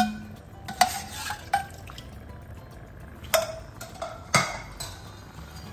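A utensil stirring a thickening béchamel in a cooking pot, knocking against the pot's side several times with sharp, briefly ringing clinks as the lumps are broken up.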